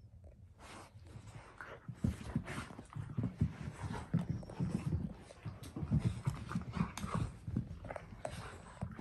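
A golden retriever puppy and a husky wrestling and scrambling on a rug: irregular scuffling and thumps of paws and bodies, with small dog noises. It gets busier about two seconds in.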